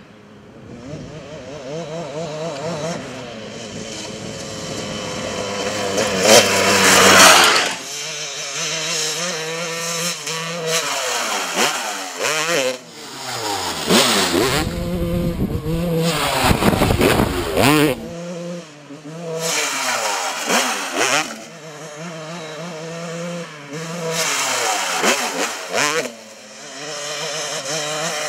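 Kawasaki KX250 two-stroke dirt bike engine revving hard and letting off over and over as the bike accelerates, shifts and jumps, its pitch sweeping up and down. It is loudest about seven seconds in.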